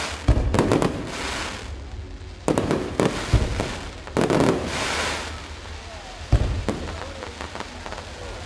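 Aerial firework shells bursting overhead: about eight sharp bangs, some in quick pairs, each followed by a hiss of falling sparks.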